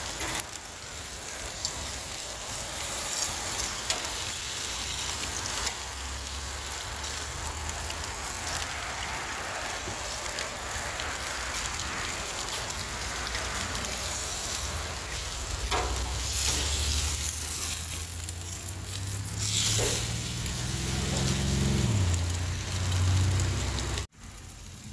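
Tomahawk steak sizzling on a hot gas grill over open flames, a steady hiss with scattered pops and crackles. A low droning that rises and falls in pitch joins in during the last several seconds, and the sound cuts off abruptly near the end.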